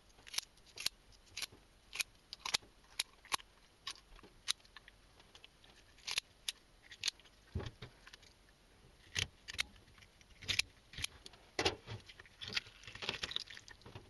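Kitchen scissors snipping through the belly and rib bones of a crucian carp: a string of short, sharp clicks at an uneven pace, sometimes several a second, with brief pauses between runs.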